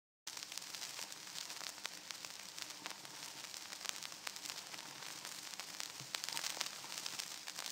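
Vinyl record surface noise on a turntable: a faint, steady hiss with frequent scattered crackles and pops.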